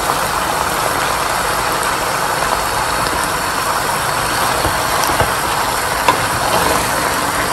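Steady sizzle of a curry frying in a pan under a heap of raw spinach. Two light knocks of a wooden spatula against the pan come about five and six seconds in.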